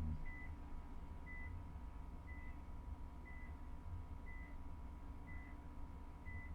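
Electronic beeper sounding a short, high beep about once a second, over a low steady rumble.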